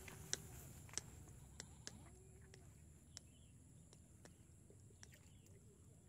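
Near silence: faint outdoor ambience with a few sharp clicks in the first two seconds and several soft, short animal calls.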